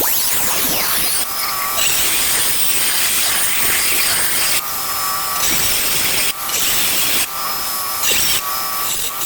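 Power tool with a diamond blade dry-cutting stone tile: a loud, steady grinding whine that changes character several times as the blade bites into the cut and eases off.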